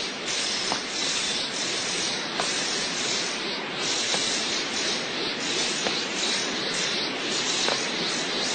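Anime energy power-up sound effect: a steady, loud rushing hiss, like an aura or blast of energy surging without a break.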